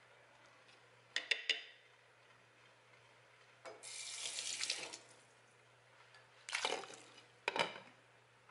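Three quick clicks, then about a second of running water, then two clattering knocks with a short ring as a glass slow-cooker lid is set onto the ceramic crock.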